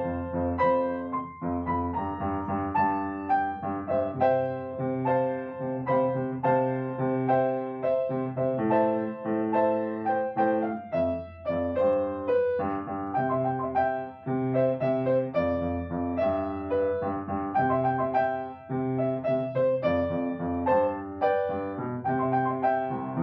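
Piano music: a melody of many short notes over sustained chords and low bass notes.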